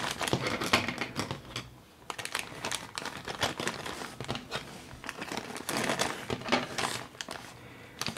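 Small plastic bag of diamond-painting drills crinkling and rustling as it is handled, in irregular bursts of crackle with a brief lull about two seconds in.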